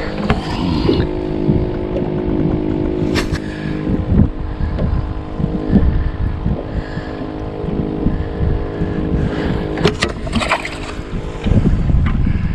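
Electric trolling motor humming steadily as it holds the boat in place on spot lock, under a gusty wind rumble on the microphone. A few short knocks come about three seconds in and again near ten seconds.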